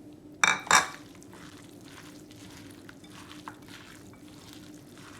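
Thick gram-flour pakora batter with spinach and onion being mixed in a bowl: soft, repeated wet stirring strokes, after two sharp loud sounds about half a second in.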